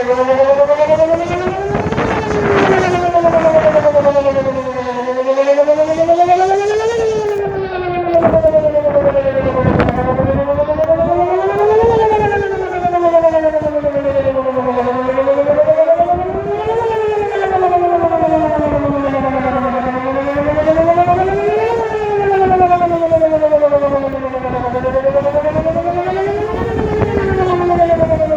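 Whelen WPS 2910 electronic outdoor warning siren sounding a wail tone in a test, its pitch rising and falling slowly, about once every five seconds.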